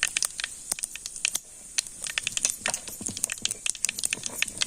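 Mustard and cumin seeds spluttering in hot oil: irregular sharp pops over a steady sizzle.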